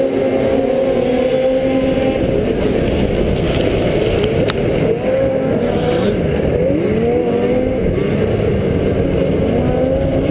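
Racing snowmobiles' two-stroke engines running hard at the start of a heat, the rider's own sled loudest, its pitch rising and dipping again and again as the throttle changes.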